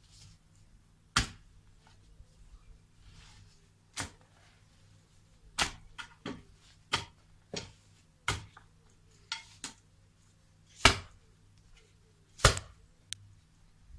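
Sharp chopping strikes on laurel hedge wood, about fourteen at an uneven pace, the two loudest near the end.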